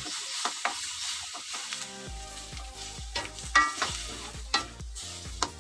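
Metal spatula stirring a simmering tomato-chilli sauce in an aluminium wok, with scattered clinks and scrapes against the pan over a soft sizzle.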